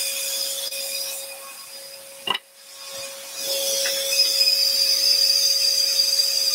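Scroll saw running with a steady hum while its blade rasps through a wooden board. About two seconds in a sharp click comes and the cutting noise briefly drops away, then the saw comes back louder and steady.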